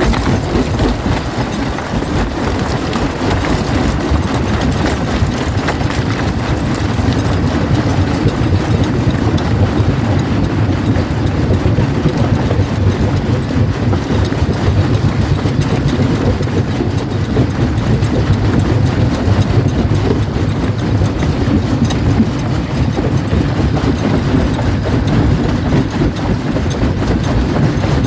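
Primary jaw crusher running and crushing rock: a steady low rumble with dense, continuous clattering and cracking of stone.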